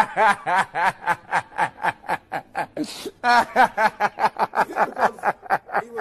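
A man laughing hard in a long run of rapid "ha" pulses, about four a second, with a short break about three seconds in before a higher-pitched burst starts the laugh again.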